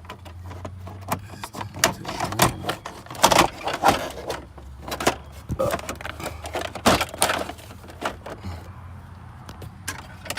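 Irregular clicks, knocks and rattles of an instrument cluster being handled and fitted into a car dashboard, over a low steady hum.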